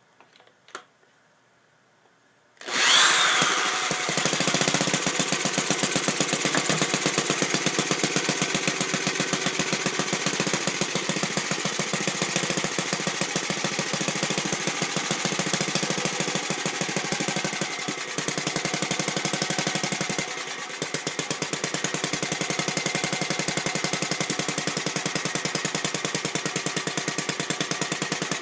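Home-built single-cylinder four-stroke model gasoline engine (Brian Rupnow's vertical IC design, with pushrod valves and Hall-sensor ignition) spun up by a handheld electric starter about two and a half seconds in. It catches at once and runs with a fast, steady exhaust beat, sagging briefly twice about two-thirds of the way through.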